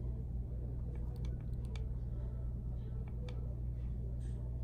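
Faint, scattered clicks of the push buttons on a Cycle Satiator battery charger being pressed to set a value, over a steady low hum.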